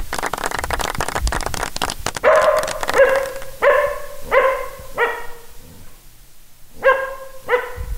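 Border Collie mix barking seven times in an even series, one bark for each letter of 'slipper' as it spells out the answer, with a short pause before the last two barks. A burst of audience applause fills the first two seconds.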